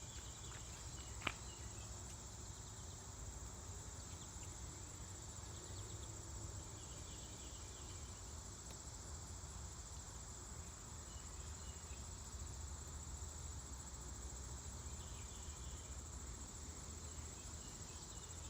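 Insects trilling steadily in one high, unbroken tone, over a faint low rumble, with a single click about a second in.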